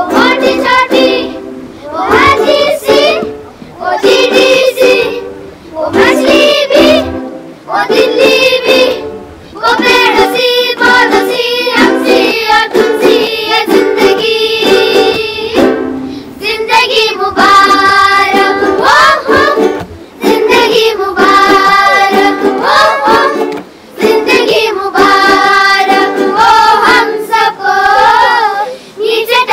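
Background music: a song, with a voice singing short phrases over a steady sustained accompaniment.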